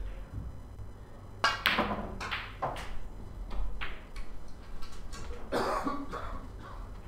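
Several coughs, with snooker balls clicking together and rolling on the table.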